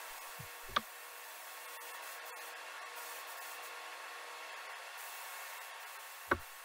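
Steady hiss of moving air with a faint even hum, from the spray-painting area, broken by two short clicks about a second in and near the end.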